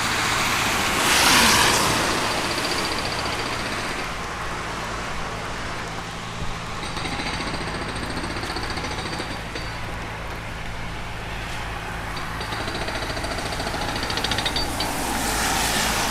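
Outdoor street noise: a steady low engine hum with a vehicle passing about a second in, then two stretches of fast mechanical rattling in the second half.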